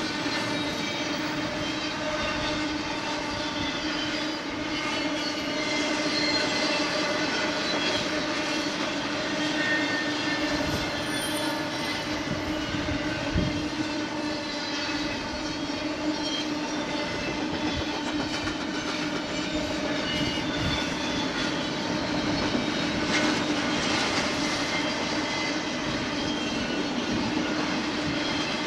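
Double-stack intermodal container well cars rolling past on the rails, with wheel rumble and clatter and a steady ringing tone throughout. A few sharp knocks from the wheels and couplers stand out, the clearest about halfway through.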